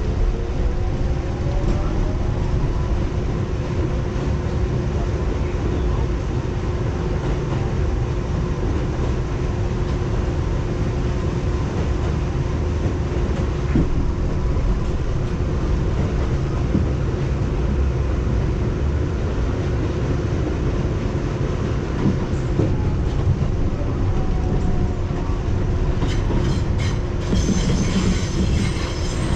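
R62A subway train running along the track, heard from inside the front car: a steady low rumble with a constant hum. In the last couple of seconds a high-pitched wheel squeal sets in.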